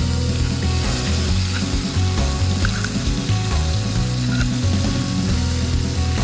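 Food frying in a pan, a steady sizzling hiss.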